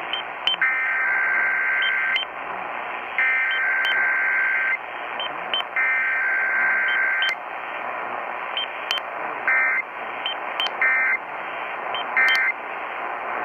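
Emergency Alert System SAME header data bursts, the buzzy digital tones that open an EAS test, received over a hissy AM radio. Three long bursts of about a second and a half each come a little over a second apart, followed later by three much shorter bursts, with static and faint clicks between them.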